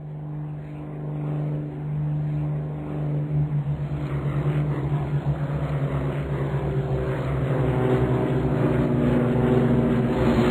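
Propeller aeroplane engine sound effect: a steady engine drone that grows louder as it approaches.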